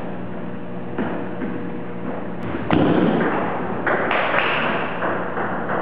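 A few irregular thuds and knocks over a steady hum, the loudest about three seconds in.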